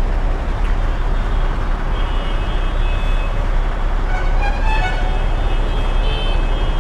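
Riding a motorcycle through heavy city traffic: a steady low rumble of engines and road noise, with short high horn tones from other vehicles sounding around two seconds in, again between four and five seconds, and near the end.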